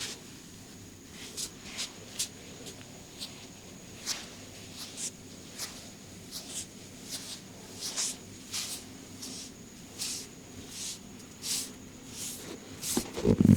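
Hands rubbing and scratching over hair and skin in a massage: short, irregular swishing strokes, one or two a second, with a couple of louder thuds near the end.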